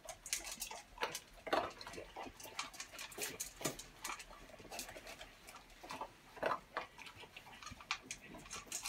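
Two flat-coated retrievers eating from stainless steel bowls: rapid, irregular crunching and clicking of chewing and of muzzles against the metal bowls, several sounds a second.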